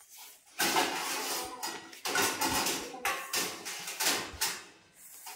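Hands rubbing and squeezing crumbly maida flour and ghee in a steel bowl: a series of irregular rustling, scraping strokes of flour and fingers against the metal.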